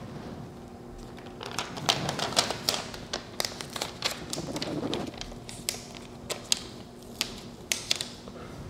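Irregular crackling and ticking as the paper backing is peeled off an adhesive tree band and the sticky strip is pressed by hand around a post.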